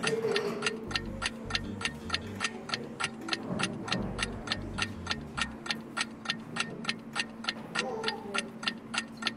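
Clock-ticking countdown sound effect, even and steady at nearly five ticks a second, timing a quiz answer.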